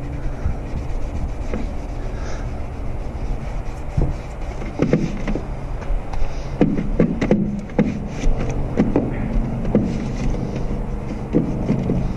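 Hands rubbing and handling a plastic helmet shell close to the microphone. Scattered scrapes and knocks start about four seconds in, over the steady low drone of an idling truck engine.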